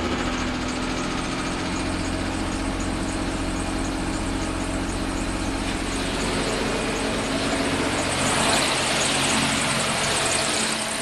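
Mitsubishi 6G72 3.0-litre V6 petrol engine idling steadily just after a cold start, having sat for three weeks.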